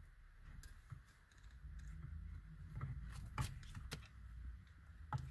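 Faint rustling and scattered sharp clicks of a car-radio wiring harness and its wires being handled.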